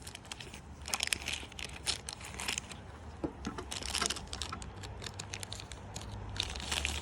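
Packaging being handled and unwrapped, with irregular crinkling and rustling and small clicks.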